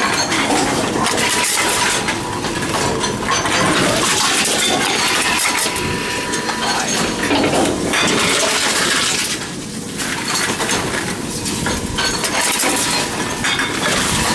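Envipco CF-1500 reverse vending machine taking in drink containers: continuous clattering, clinking and crushing as bottles are fed in and crushed.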